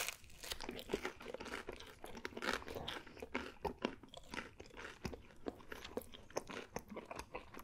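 Close-miked chewing of a mouthful of pepperoni pizza, with many small irregular wet clicks and crackles from the mouth and crust, and a louder one right at the start.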